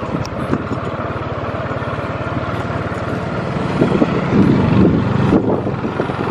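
Motorcycle engine running as the bike rides over a rough, rocky track, getting louder about four seconds in.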